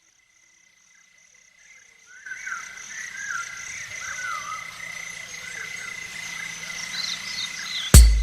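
Nature-ambience intro of a pop-rock song: chirping insects at about two or three pulses a second, a steady high tone and warbling frog-like calls that fade in from silence about two seconds in. A heavy drum hit comes in just before the end.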